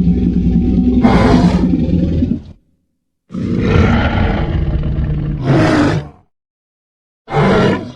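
Dubbed-in creature roar sound effects for the film's dinosaurs: a long, deep roar, then dead silence, a second roar of about three seconds, and a short roar near the end.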